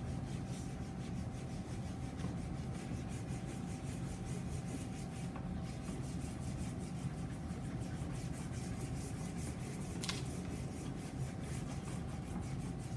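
Wax crayon rubbed in repeated strokes across a sheet of paper backed by a whiteboard, colouring in a stripe.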